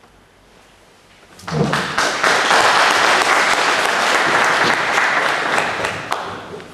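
Audience applauding: dense clapping breaks out about a second and a half in, holds loudly for about four seconds, then dies away near the end.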